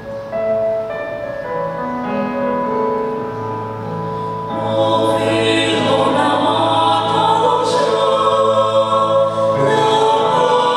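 Electronic keyboard playing held chords as a hymn introduction; about four and a half seconds in, a small mixed choir of men and women comes in singing the hymn to the keyboard accompaniment, louder from there on.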